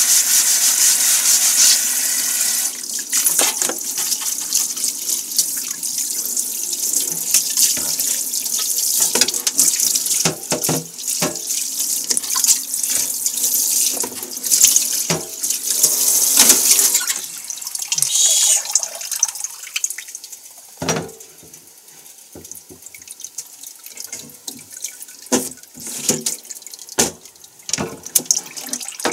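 Kitchen tap running into a sink, strongest for the first few seconds, then water splashing as things are rinsed under it, with many sharp clinks and knocks of items against the sink. It gets quieter in the last third.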